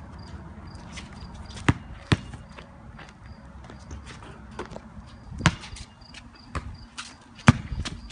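Basketball bouncing on a concrete driveway: a few sharp, irregularly spaced smacks, the loudest near the end.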